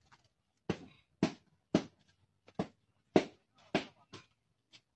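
A person's short, sharp vocal bursts, about seven in a row at roughly two a second, with silence between them.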